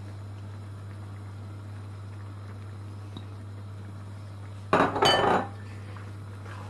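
Kitchenware clattering once, about two-thirds of the way through: a sudden knock and a ringing clink lasting about half a second, over a steady low hum.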